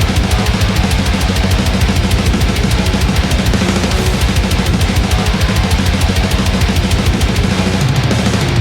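Heavy metal music: sampled drums from the Ultimate Heavy Drums Kontakt library play a rapid, steady kick pattern under heavy guitars.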